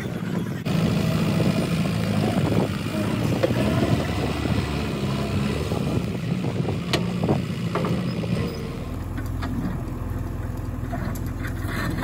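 Diesel engine of a JCB 3DX backhoe loader running steadily, with a few scattered knocks. About nine seconds in the sound shifts to a lower, duller engine hum.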